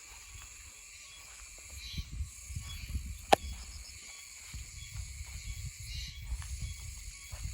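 Oshima cicadas (Meimuna oshimensis) calling sporadically over a steady high insect buzz, with a low rumble underneath. A single sharp click, the loudest sound, comes a little before the middle.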